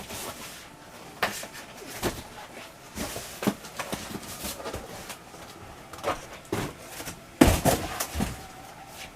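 Cardboard boxes being handled and opened: scattered rustles, scrapes and knocks, loudest about seven and a half seconds in.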